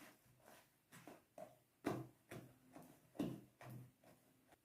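Thick cake-bun batter being mixed in a bowl: faint, irregular soft squelches and taps, about two a second.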